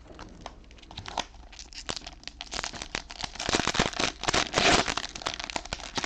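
Cellophane wrapping on trading-card packs crinkling and crackling as it is handled, denser and louder from about halfway through.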